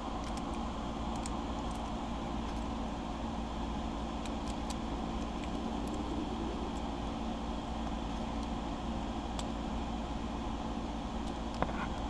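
Steady low hum with a few faint, sharp metal clicks as a brass lock cylinder is worked with a small pin tool during rekeying.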